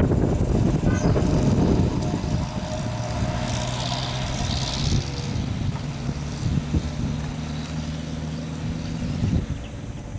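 Road vehicle engines, led by a Lanka Ashok Leyland bus's diesel engine running as the bus moves off, with a steady engine hum in the middle. The noise eases near the end.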